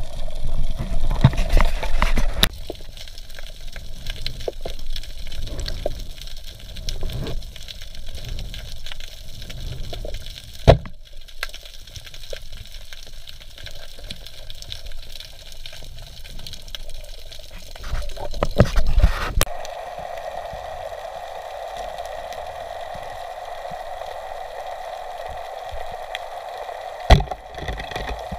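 Underwater sound picked up by a diver's camera: water sloshing and gurgling, with a sharp knock near the middle and another near the end. In the last third it becomes a steadier hiss.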